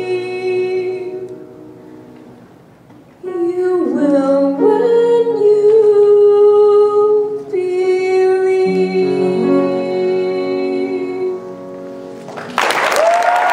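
A female soloist sings the closing phrase of a ballad into a microphone over accompaniment and holds a long final note. About a second before the end, the audience breaks into applause.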